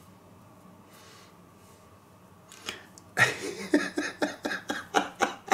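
A man laughing: a run of short ha-ha bursts, about three or four a second, starting a little past halfway. Before it, only faint room sound.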